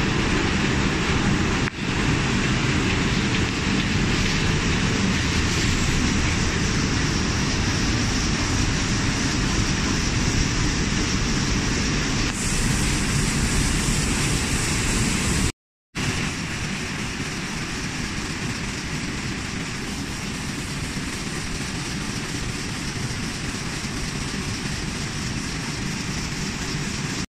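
Multi-unit sheetfed offset printing press running, a steady loud mechanical din. It drops out for a moment about halfway and then carries on slightly quieter.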